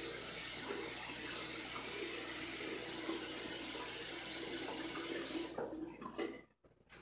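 Bathroom tap running steadily into a sink as a face is rinsed; the water stops about six seconds in.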